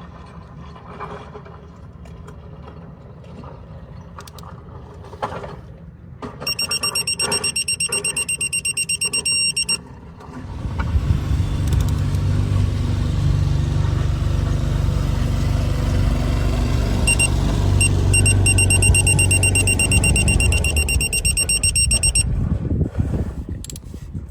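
A car's rapid electronic warning chime beeps for a few seconds. Then the 2001 Toyota Celica GT's engine starts, about ten seconds in, and idles steadily on its new spark plugs while the chime beeps again for several seconds.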